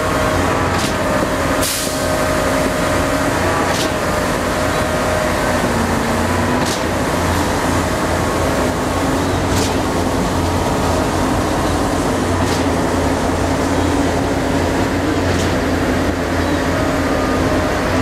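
Heavy construction machinery running steadily at a concrete pour, a deep even engine drone, with a few faint sharp ticks every few seconds.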